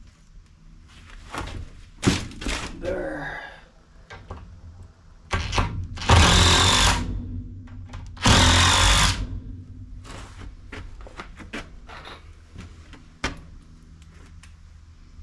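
DeWalt cordless impact driver running twice, about a second each time, driving screws through a board into a wooden upright. A few knocks and clatter of the lumber being handled come before, and one sharp knock near the end.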